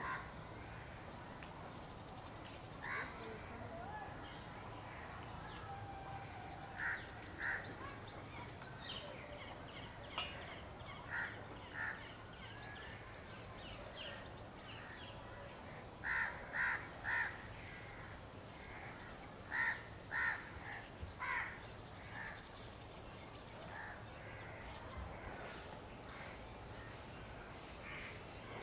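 Crows cawing in the background, several times over in groups of two or three short calls, with faint small-bird chirps and a steady high thin whine under the garden ambience.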